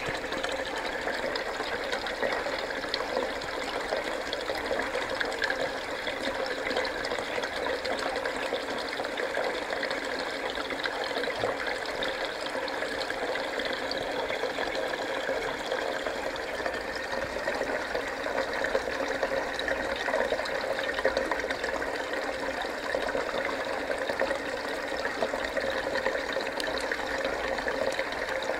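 Water running steadily in an aquaponics fish tank: the system's circulating water flowing into the tank as an even, unbroken rush.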